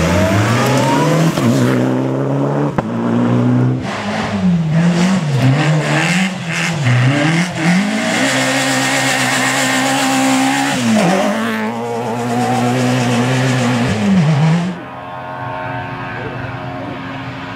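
Rally car engine at hard throttle. The revs climb, then rise and fall quickly several times, hold high, and dip sharply once before climbing again. The sound falls away abruptly near the end.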